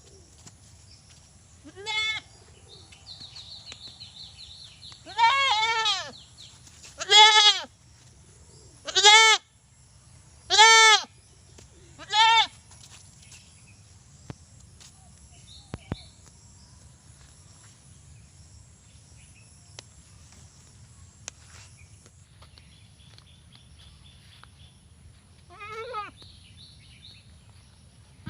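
Desi goat bleating: six loud, wavering bleats in the first dozen seconds, one of them longer than the rest, then a quieter single bleat near the end.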